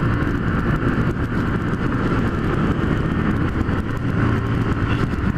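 Honda CG 150 Fan's single-cylinder four-stroke engine running steadily while cruising, with wind noise rushing over the microphone.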